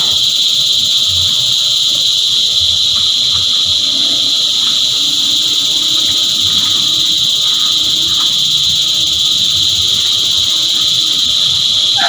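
Cicada chorus: a loud, steady, high-pitched buzzing drone that never lets up.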